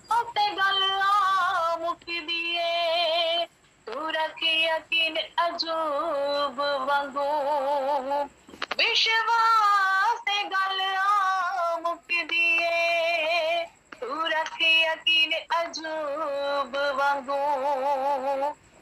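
A woman singing a Punjabi Christian hymn in long held notes with a wavering vibrato, in phrases broken by short pauses, heard over a video-call connection.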